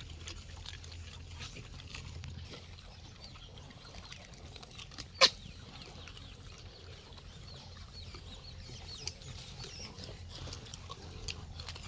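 Gray langurs rummaging in cardboard boxes of tomatoes and eating: faint rustling and ticking over a low steady hum, with one sharp click about five seconds in and faint bird chirps later on.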